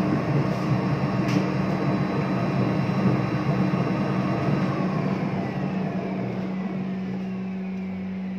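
Motor of a foaming bubble-bath tub running with a steady hum, over churning, frothing water. The water noise eases about five seconds in, leaving the hum on its own.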